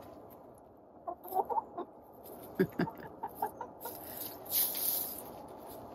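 A small flock of backyard hens giving a few short clucks while pecking at a seed block on straw, with scattered pecking taps and a brief rustle about halfway through.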